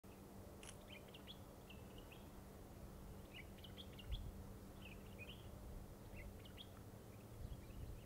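Faint outdoor ambience of small birds chirping in short scattered calls, over a steady low hum and a light low rumble, with a brief low bump about halfway through.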